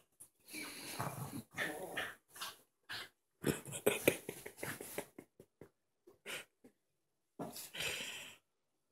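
Small dogs play-fighting: irregular bursts of play growling with the rustle of bedding as they tussle, loudest about four seconds in, with a last burst near the end.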